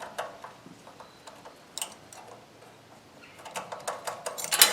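Small metal engine parts clicking and knocking as a snowblower's carburetor and its linkage are worked loose by hand. Scattered clicks give way to a quick flurry of knocks near the end, the loudest just before it stops.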